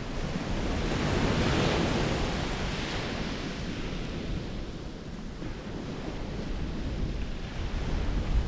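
Sea surf breaking and washing up the beach, swelling about a second in and easing away, then building again near the end, with wind buffeting the microphone.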